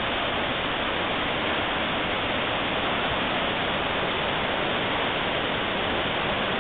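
White water of Roaring River Falls rushing over rocks: a steady, unbroken noise of falling water.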